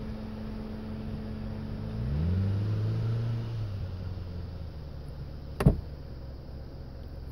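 A vehicle engine running, swelling and dropping in pitch about two seconds in, then running on lower and steadier. A single sharp click about three-quarters of the way through is the loudest sound.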